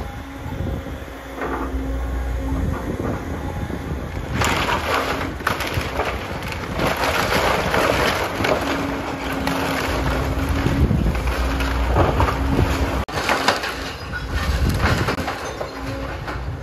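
Caterpillar hydraulic excavator running with a steady low hum while its bucket and arm break up and drag through the splintered wooden debris of a demolished house. From about four seconds in there is dense crunching, cracking and scraping of timber and rubble, loudest in the middle, with a sharp crack a little before the end.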